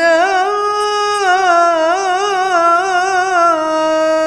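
A woman reciting the Quran in melodic qiroah style, drawing out one long held note with small wavering ornamental turns, stepping down slightly about a second in.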